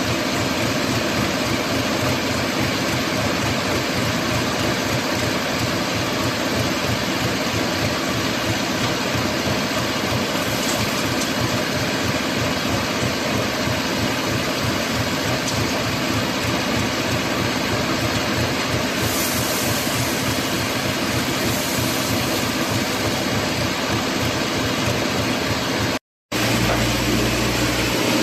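Engine of a crawler concrete mixer pump running steadily, with a fast low throb. Near the end the sound cuts out for a moment, then comes back as a deeper steady hum.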